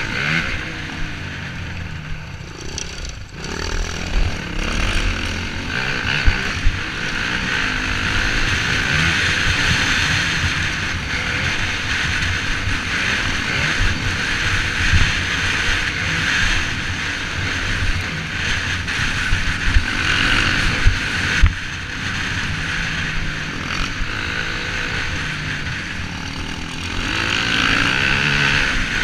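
Dirt bike engine ridden along a bumpy trail, revving up and down with the throttle, with a sharp rise in pitch at the start. A few sharp knocks come from the rough track.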